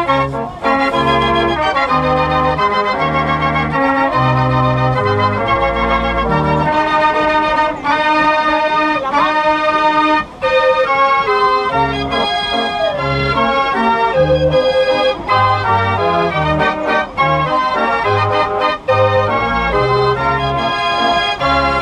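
Dutch street organ playing a tune: pipe melody over a rhythmic bass accompaniment.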